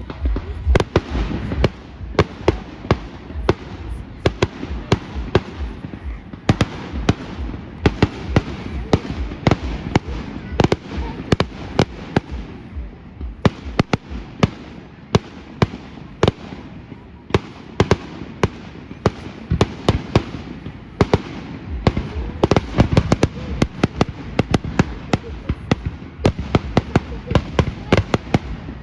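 Fireworks display going off: a dense barrage of sharp bangs and crackles, often several a second, with brief lulls.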